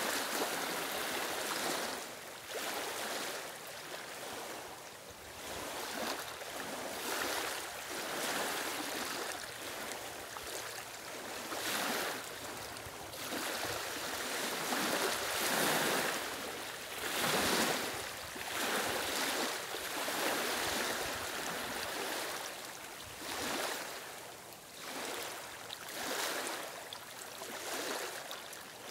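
Small waves lapping and washing over a stony, reedy shoreline, swelling and easing every second or two.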